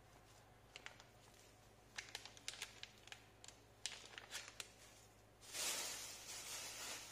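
Crinkling of a plastic mix packet being shaken and handled, a run of sharp little crackles; about five and a half seconds in, a louder rustle of a thin plastic bag being opened and handled.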